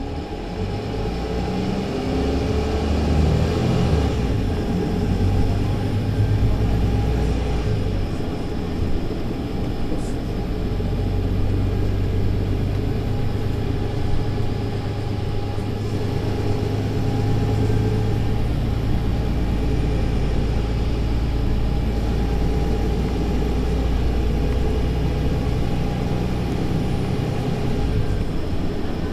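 Mercedes-Benz Citaro C2 LE city bus's diesel engine and Voith automatic gearbox, heard from inside the passenger cabin. The bus accelerates, the engine note rising over the first few seconds, then runs steadily at speed and eases off near the end.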